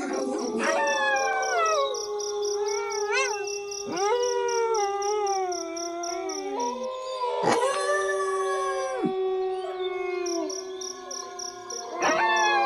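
A pack of wolves howling in chorus: several long howls overlap, one held on a steady pitch while others slide up and down, with fresh howls joining about four seconds in, midway and again near the end.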